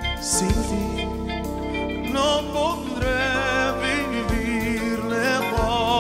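Live performance of a slow romantic Tejano ballad: a male lead voice sings over a band with button accordion and bass.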